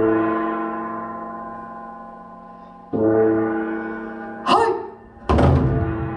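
A large gong struck and left to ring, its many tones fading slowly, then struck again about three seconds in. Near the end a sharp crack is followed by loud, heavy drum strikes as the drum performance begins.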